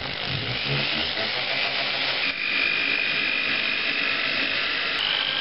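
Hand-held electric drill running as it bores a small hole into an old gas-charged shock absorber's steel tube, drilled to let the gas escape. A steady high whine drops slightly in pitch a little over two seconds in and rises again near the end.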